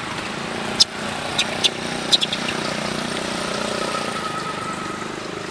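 A motor engine running steadily in the background, with a few short high squeaks in the first couple of seconds.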